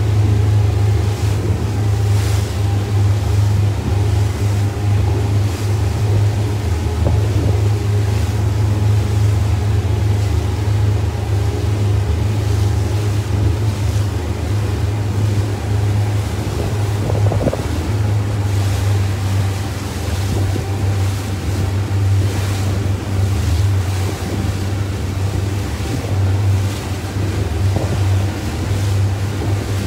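A boat's engine drones steadily, with water washing past and wind buffeting the microphone.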